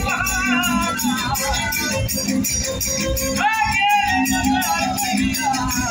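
Verdiales folk music from Málaga: a singer holds long lines at the start and again from about three and a half seconds in, over a steady beat of jingling percussion.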